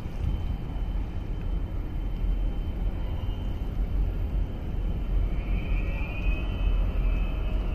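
Steady low rumble of a boat's engine, with wind buffeting the microphone. Faint thin whistling tones come in near the end.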